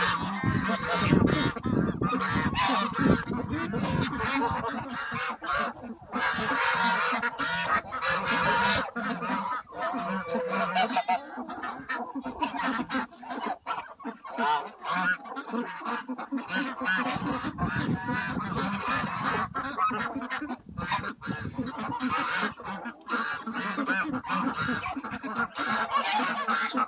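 A crowded mixed flock of geese, ducks and chickens feeding: geese honking and ducks calling over one another without pause, with many short clicks throughout.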